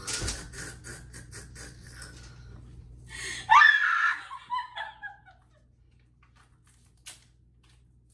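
A woman laughing hard in quick breathy pulses, then a loud, high-pitched shrieking laugh about three and a half seconds in that falls in pitch and dies away over a couple of seconds. After that it goes quiet, with a single click near the end.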